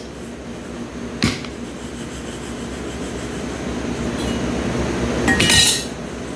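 A bowl and kitchen utensils handled while breadcrumbs and grated cheese are mixed by hand: a sharp knock about a second in, soft rustling that grows louder, and a louder clatter with a brief ring near the end.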